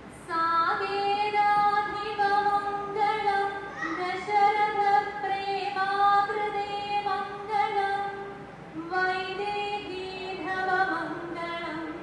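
A woman chanting a verse in aksharashlokam style, unaccompanied, in long held melodic notes that glide from pitch to pitch. She pauses briefly for breath about nine seconds in, then goes on.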